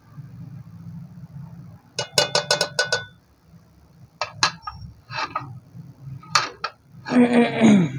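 Steel ladle clinking against an aluminium cooking pot: a quick run of about six ringing taps about two seconds in, then a few scattered knocks. A short vocal sound near the end.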